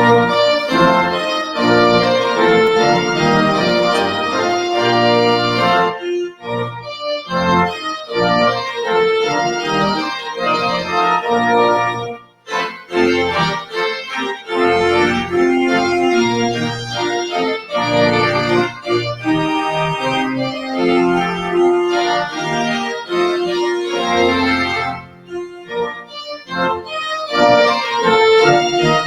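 Organ playing a postlude: sustained full chords, with a few short breaks between phrases.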